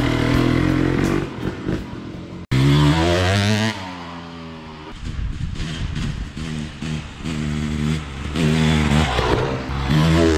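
2015 KTM 250 SX's single-cylinder two-stroke engine, running on a newly fitted Lectron carburetor, revving as the dirt bike is ridden, its pitch rising and falling with the throttle. The sound breaks off abruptly about two and a half seconds in, comes back with a loud rev that falls away, then returns in repeated rev pulses.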